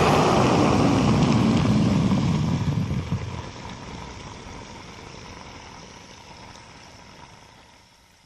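A hard-rock band's last chord, distorted electric guitar ringing out loud for a few seconds, then slowly dying away to almost nothing.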